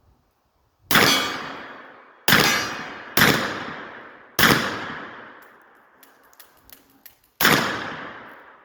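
Five shots from a hammerless revolver chambered for .45 Colt and .410 shotgun shells, fired at uneven intervals, each shot followed by a long echo that fades out. A few faint clicks come between the fourth and fifth shots.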